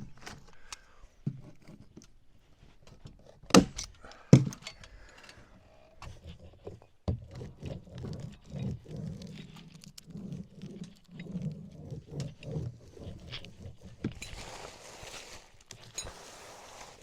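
Thumps and scuffs of someone working on a wooden cabin roof: two sharp knocks a few seconds in, then a run of soft, irregular thumps, and a brief hissing rustle near the end.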